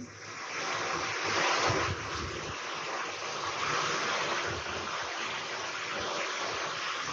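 Steady rushing noise with no clear pitch, swelling during the first second and then holding even.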